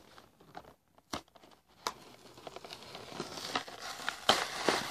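Fingerboard toy packaging being torn open by hand: a couple of sharp clicks, then crinkling and tearing that grows louder in the second half.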